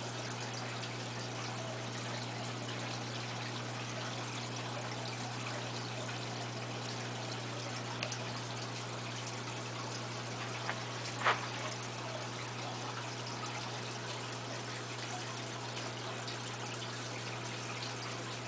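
Aquarium water trickling steadily over a constant low hum, as from a running tank filter. One short sharp click about eleven seconds in.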